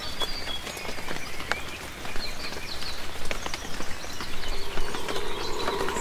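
Birds chirping in a pine wood, short scattered calls over a bed of irregular crackling clicks. About four and a half seconds in, a steady low tone with a higher one above it comes in and holds.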